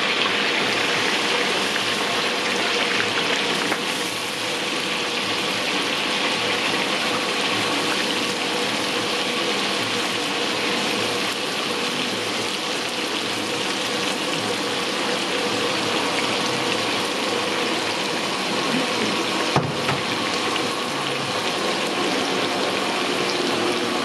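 A large aluminium pot of water boiling hard over a gas fire: a steady rush of bubbling and hissing, with one brief knock near the end.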